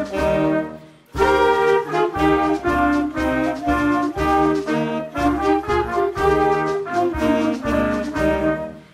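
A school wind band of flutes, saxophone, trombones and trumpets playing a tune together. There is a short break in the music about a second in, and the phrase dies away near the end.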